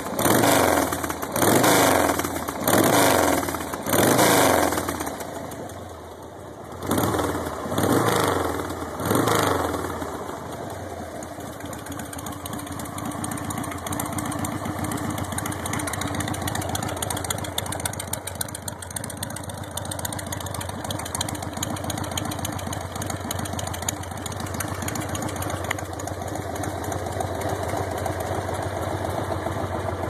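1994 Harley-Davidson Sportster's air-cooled Evolution V-twin with an NRHS 1250 kit, blipped through about seven quick throttle revs in the first ten seconds. It then settles into a steady, evenly pulsing idle at about 1,000 rpm.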